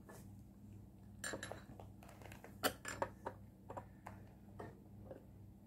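Scattered light metallic clicks and clinks as the chainsaw's guide bar and chain are handled with the bar nuts loosened to finger tight, ready for tensioning.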